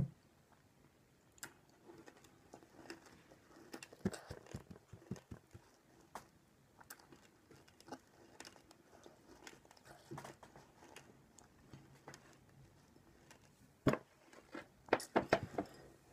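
A mouthful of Nerds candy being chewed: faint scattered crunches and clicks, with a few louder knocks and clicks near the end.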